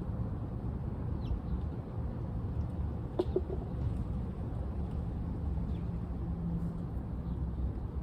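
Birds calling a few times, short chirps with one clearer call about three seconds in, over a steady low rumble.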